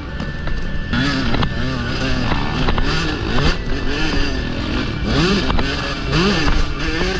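Motocross bike engine being ridden hard, its note climbing and dropping again and again as the throttle opens and closes.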